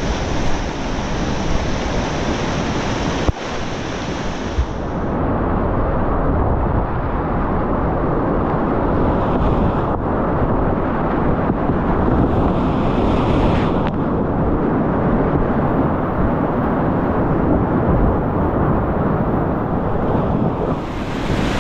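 Rushing whitewater of a steep creek, a loud steady noise of rapids mixed with wind buffeting the microphone. About five seconds in the sound turns duller, losing its hiss.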